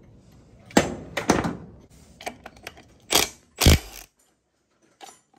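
Sharp metallic clunks and knocks, about four loud ones with lighter clicks between, from tools and parts being handled on an A340 automatic transmission casing at the bench.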